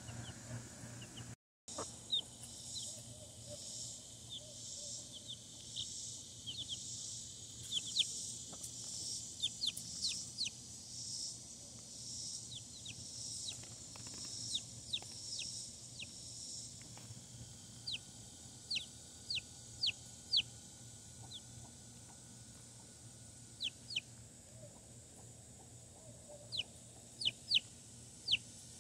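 Week-old chicks peeping: short, high peeps in scattered clusters, coming faster near the end. A faint high pulsing buzz runs in the background and stops about halfway through.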